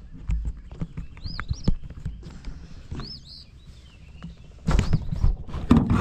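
Footsteps and hollow knocks on a wooden dock and in a small fishing boat, with a bird singing short arched whistles in the background several times. Near the end there is louder rustling and knocking as the camera is handled right up against the microphone.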